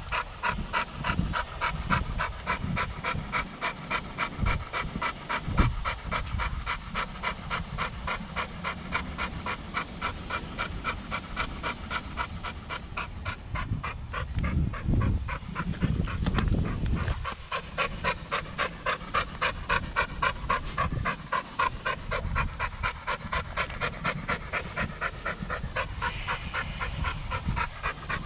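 Dog panting rapidly and rhythmically, about three to four breaths a second, winded and hot from chasing an RC car.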